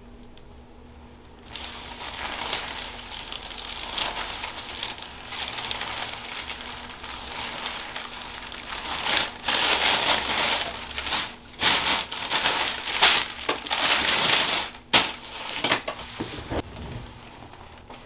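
Paper headrest cover on a chiropractic table crinkling and rustling under the patient's head as his neck is massaged and moved. Irregular, loudest in the second half, with a few sharp crackles, then settling down near the end.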